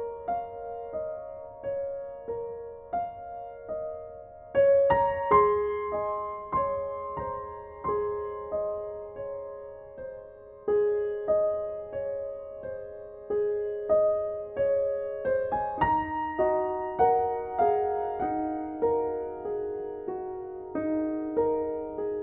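Soft background piano music: a slow melody of single struck notes, each fading away, with fuller chords about four seconds in and again about two-thirds of the way through.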